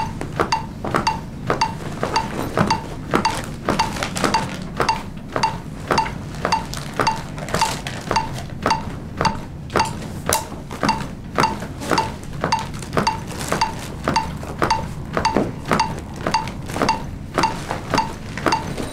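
A CPR metronome beeps steadily about twice a second, a short high beep each time, pacing continuous chest compressions on a training manikin. Each compression adds a click.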